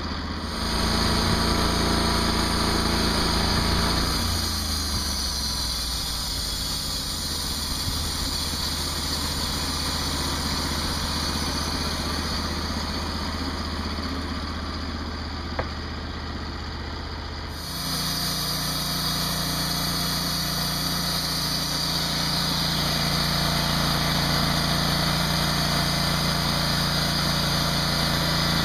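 Gasoline engine of a TimberGriz portable band sawmill running steadily, driving the band blade through red cedar; its pitch drops about four seconds in, and the sound changes abruptly about two-thirds through.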